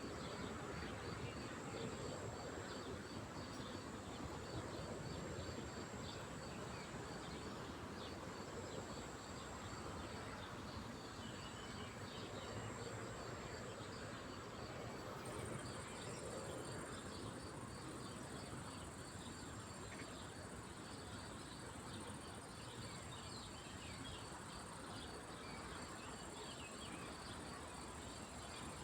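Insects trilling steadily: one high continuous trill and a second, evenly pulsed trill a little lower, over a steady low rush of background noise.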